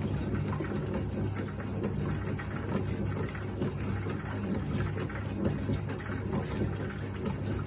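Hotpoint Countess wringer washing machine running: a steady electric motor hum under continuous churning and splashing of the wash water in the tub.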